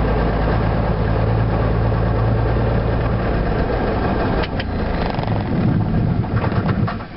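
Beechcraft Bonanza's flat-six piston engine idling steadily, then stumbling and popping unevenly from about four seconds in as it is shut down and the propeller winds down.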